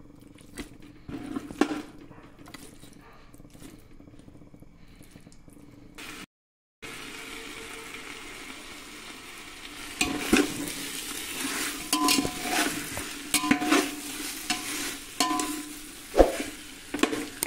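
Chicken pieces frying over high heat with onions and ginger-garlic paste in a metal pot, sizzling steadily while a metal spatula stirs and scrapes against the pot with clinks. After a brief break about six seconds in, the sizzle is steady, and from about ten seconds on the scraping and clinking strokes grow louder and more frequent.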